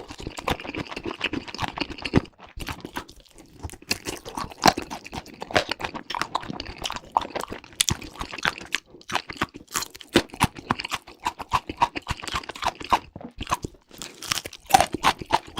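A person chewing crunchy food close to the microphone: many irregular crunches and wet mouth clicks, several a second.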